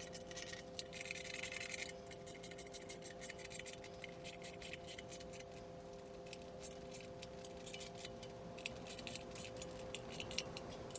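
Light, rapid metallic clicking and clinking as the bolts clamping the inverted air-hydraulic jack to the shop press's top crossmember are tightened by hand. A faint steady hum lies underneath.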